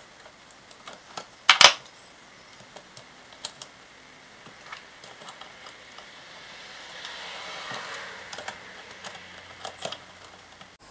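Steel adjustable wrenches clicking and tapping against an AN hose-end fitting as it is wound together onto braided hose, with a sharp double clack about one and a half seconds in. A soft rubbing noise swells for about two seconds past the middle as the fitting turns and tightens.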